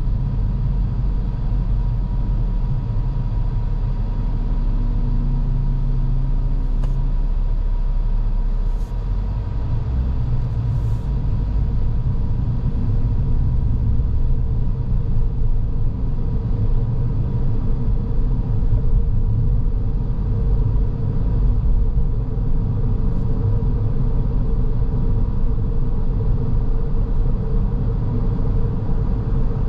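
Car driving on the road: a steady low rumble of engine and tyre noise, with a faint steady hum running through it.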